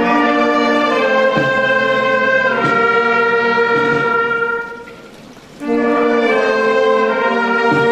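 Brass music playing long held chords, which fall away briefly about five seconds in before the next phrase starts.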